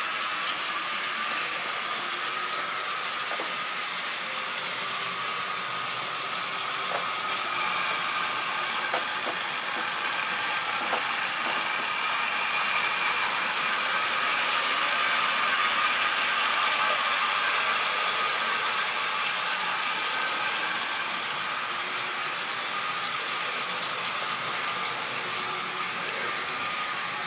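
Model train running on the layout's track: a steady whir of the small electric locomotive motor and the wheels of a rake of tank wagons rolling over the rails, with a few light clicks in the first half. It grows a little louder in the middle as the train passes close.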